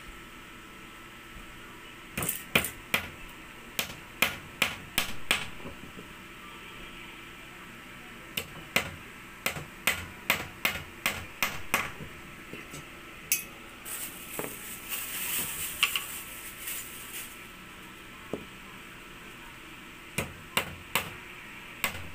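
Claw hammer driving nails into a wooden batten: runs of several sharp strikes with pauses between, as nail after nail is hammered in.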